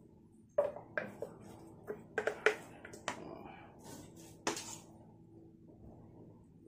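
Hands scooping a sticky ground-meat mixture from a steel bowl and packing it into a food processor's clear bowl: irregular soft wet slaps and light taps against the bowls.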